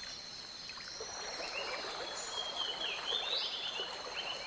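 Tropical forest ambience: a steady high insect drone, joined about a second and a half in by many short, quick chirping calls.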